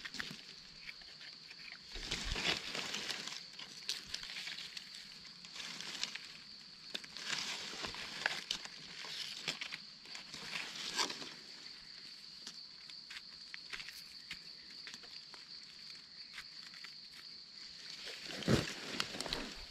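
Rustling and crunching in dry forest leaf litter from footsteps and handling, in irregular clusters, over a steady high-pitched drone of insects.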